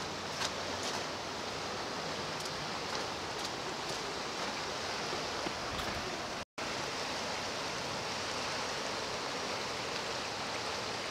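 Flooded creek rushing steadily, running fast and swollen with snowmelt. The sound cuts out completely for an instant about six and a half seconds in.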